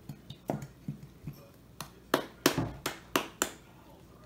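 Plastic glue bottle being squeezed hard over a glass bowl to force out the last of the glue: a dozen or so sharp, irregular clicks and taps, loudest in a quick run about two to three and a half seconds in.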